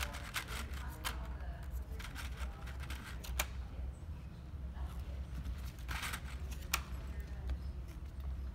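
Scattered small clicks and brief rustles of craft materials being handled, as clear push pins are pressed into a board of corrugated cardboard and craft foam, over a steady low hum.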